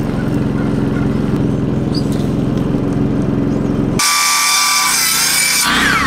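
Power saw cutting wood in quick edited shots. First comes a steady low running sound, then about four seconds in an abrupt switch to a higher whine with the hiss of the cut, its pitch dropping near the end.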